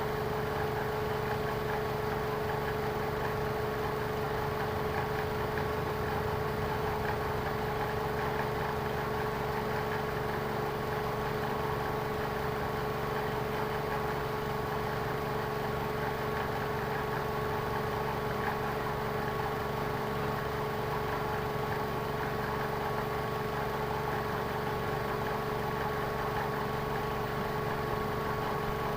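Lexus car engine idling steadily, with a constant whine over the hum.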